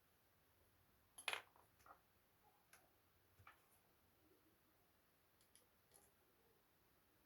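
A few light clicks and taps of small laptop parts being handled, the loudest about a second in, then scattered smaller ones over the next five seconds.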